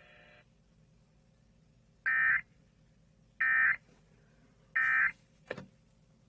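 Emergency Alert System end-of-message (EOM) data bursts: three short, identical digital tone bursts about 1.3 s apart, marking the close of the severe thunderstorm warning broadcast. A short click follows just after the third burst.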